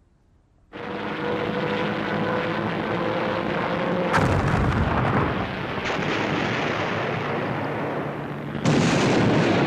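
Battle sounds of artillery fire and explosions: a dense continuous noise of gunfire that starts about a second in, with a sharp blast about four seconds in and a louder surge near the end.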